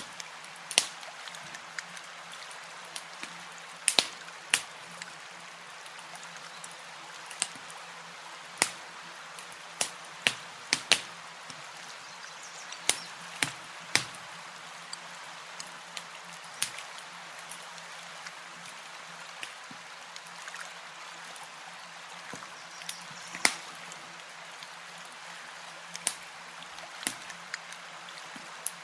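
Campfire crackling: irregular sharp pops and snaps, a few of them loud, over a steady soft hiss.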